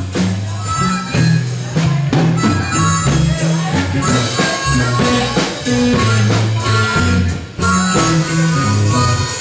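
Blues band playing an instrumental break between sung verses, a harmonica playing the lead over guitar and a walking bass line with a steady beat.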